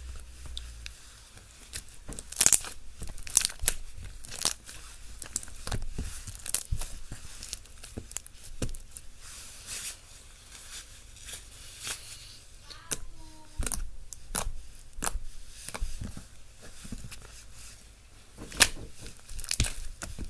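Hands squeezing and stretching slime, making irregular sticky pops and crackles, a few of them loud.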